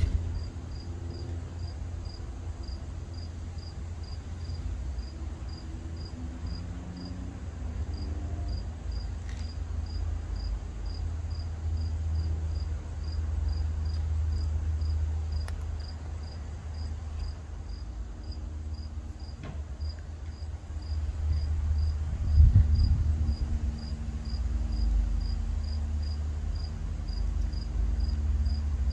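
A chirping insect calling steadily, a high chirp about three times a second, over a low rumble that swells briefly about two-thirds of the way through.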